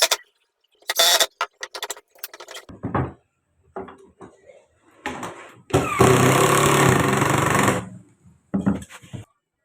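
Homemade circular table saw's electric motor running for about two seconds, a steady dense hum with held tones, after a run of short, scattered bursts of noise.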